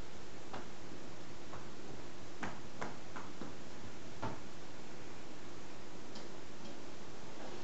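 Steady faint hiss with a few soft, irregularly spaced clicks from hands crimping shut the edge of a dumpling of soft dough.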